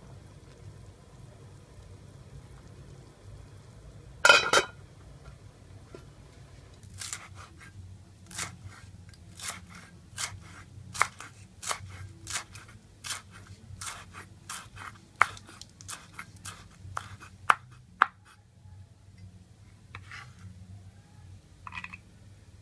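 Kitchen knife chopping green onions on a bamboo cutting board: sharp, even strokes of the blade against the wood, about two a second, for some eleven seconds. Before the chopping, a single loud knock about four seconds in.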